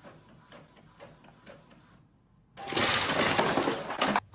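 A loud crash and clatter lasting about a second and a half, starting about two and a half seconds in and cutting off suddenly, after a stretch of faint scattered ticks.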